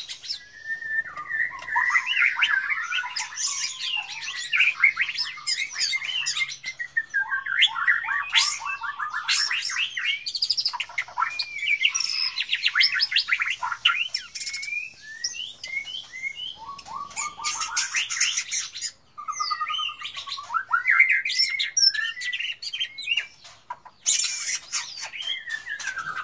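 A bird chirping and chattering almost without a break: a varied stream of quick chirps, trills, sliding whistles and short squawks, with brief pauses about two-thirds of the way through and near the end.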